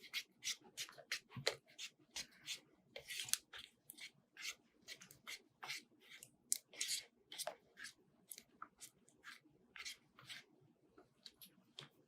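Plastic spoon stirring glue slime in a plastic cup: a steady run of short scraping strokes, about two to three a second, as the glue and contact-solution mixture is worked until it firms up.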